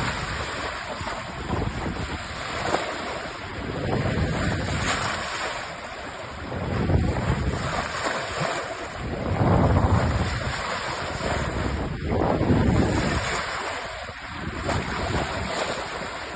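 Wind buffeting the microphone over the wash of the sea around a sailing yacht, swelling and easing every few seconds.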